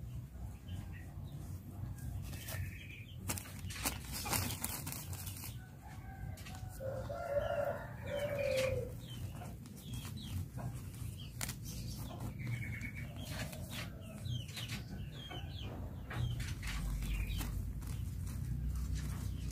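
Chickens and small birds calling: short chirps come throughout, with a louder call of about two seconds around seven seconds in. Under them are a steady low rumble and scattered knocks.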